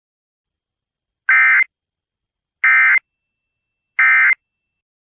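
EAS end-of-message data tones: three short bursts of SAME digital data, about a second apart, each a harsh electronic warble, closing the emergency alert.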